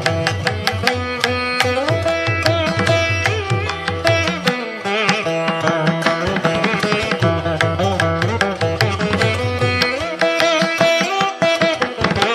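Instrumental background music in an Indian classical style: a plucked string melody with sliding, bending notes over a steady drone, with hand-drum strokes.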